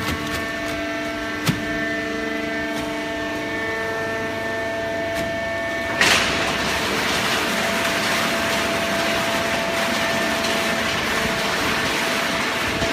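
Hydraulic paper baling press running, with a steady multi-tone whine from its pump and a single click about a second and a half in. About six seconds in, a sudden loud rushing hiss starts and keeps going.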